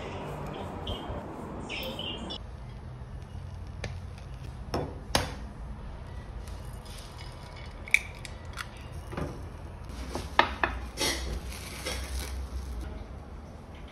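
Kitchen handling sounds: scattered sharp clinks and knocks of utensils, a pan and dishes being handled, with a crinkling rustle near the end as plastic wrap is pulled off a bowl.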